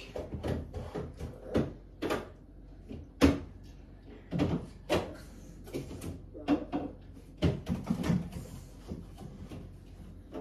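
Irregular knocks and clatter of things being put away in a cupboard, about a dozen in all, with the sharpest knock about three seconds in.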